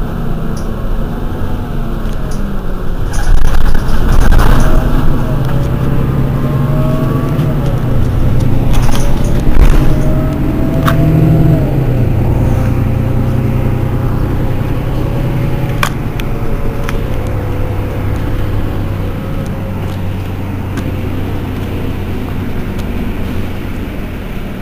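Mercedes-Benz Citaro city bus under way: the diesel engine and drivetrain pull with a rising whine, the pitch drops about halfway through, and then the bus runs steady and a little quieter. A few sharp clicks or knocks are heard along the way.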